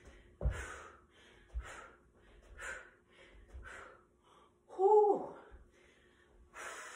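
A woman breathing hard and gasping after jump exercises, a sharp breath about once a second. Bare feet land with soft thuds on the floor twice in the first two seconds, and a short voiced exhale falls in pitch about five seconds in.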